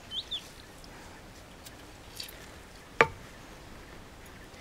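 One sharp knock with a short ring about three seconds in, from hard kitchen utensils being handled at the clay mortar. A few faint songbird chirps near the start.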